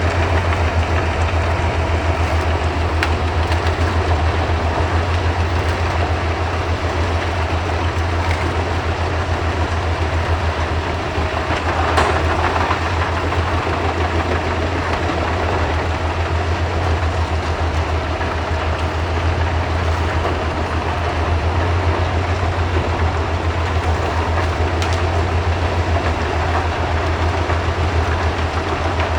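Albach whole-tree chipper running under power: a steady, loud low engine drone with a continuous hiss-like rush over it, broken by a few sharp knocks, the strongest about twelve seconds in.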